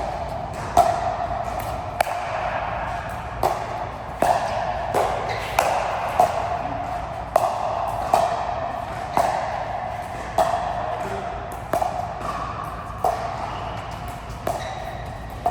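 A racket-sport rally: sharp, ringing hits about once a second, some closer together, over steady background noise.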